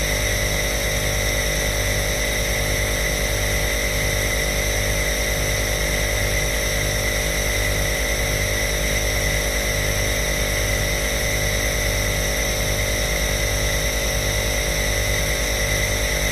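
Compressor nebulizer running steadily: a motor hum with a low, regular pulsing and a constant airy hiss.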